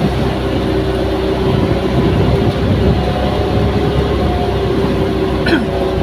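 Outrigger boat's inboard engine running steadily under way, with water rushing past the hull and outrigger float. A brief sharp click near the end.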